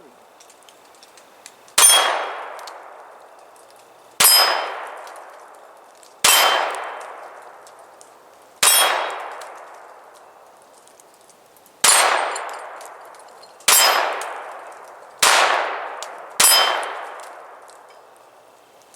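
Eight shots from a Browning Buck Mark .22 LR semi-automatic pistol, fired one to three seconds apart. Each sharp crack is followed by a long metallic ring that fades over a second or two, as steel targets are hit.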